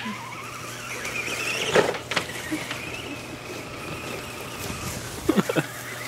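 Small electric motor of a remote-control toy spider whining in a wavering high tone for about three seconds, with a few sharp knocks around two seconds in and again near the end.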